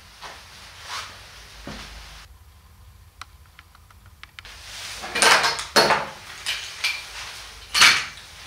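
Hard items being handled and set down on a table: a few light clicks and a run of faint ticks, then louder clattering knocks and clinks in the second half, the loudest near the end.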